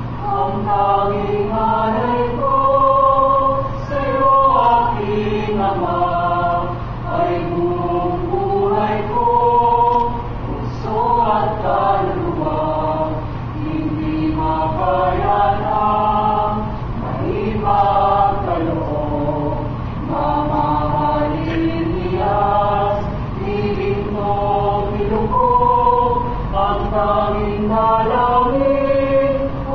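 Mixed choir of male and female voices singing in harmony, holding long notes that rise and fall together in slow phrases.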